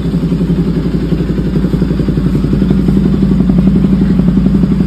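Bajaj Pulsar AS200's single-cylinder engine idling steadily, with an even, rapid exhaust pulse.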